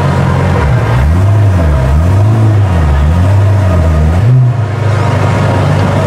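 A Pagani supercar's V12 engine idling, then revved up and down three times at about one blip a second. It drops back to a steady idle a little over four seconds in.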